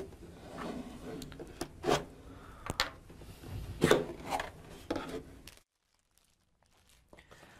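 Cardboard laptop box being handled and opened: rubbing, scraping and a few sharp knocks of hands and lid on the box, falling almost silent about five and a half seconds in.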